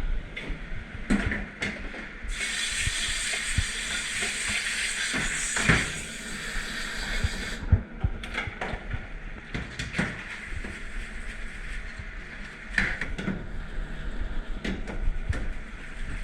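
A water spray hissing for about five seconds, then cutting off suddenly, with dishes and racks clinking and knocking throughout.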